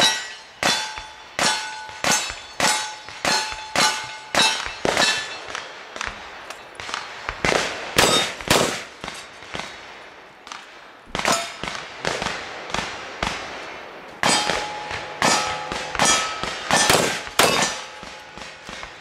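A string of rapid gunshots, about two a second, each followed by the ringing clang of a struck steel target. The string breaks off briefly twice, about a quarter of the way in and again about halfway through, then resumes.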